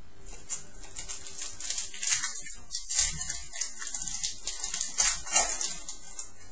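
Crinkling and tearing of a trading-card pack wrapper, an irregular run of sharp crackles with the loudest rips about two, three and five seconds in.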